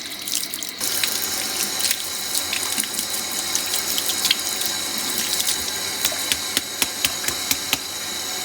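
Water running from a Moen kitchen faucet into the sink, growing stronger about a second in, with spattering splashes. The faucet is being flushed to clear black particles, which the owner puts down to worn rubber seals around the old cartridge.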